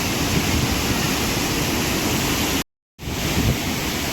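Steady rushing of water from a large waterfall, with wind buffeting the microphone. The sound cuts out completely for about a third of a second a little past halfway.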